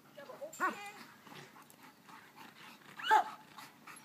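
A dog barking twice, about two and a half seconds apart.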